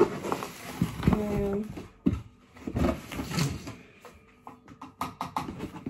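Biological washing powder shaken out of a big cardboard box, with a rustling hiss at first, then a run of light clicks and knocks as the box and its contents are handled. A short hum of voice comes about a second in.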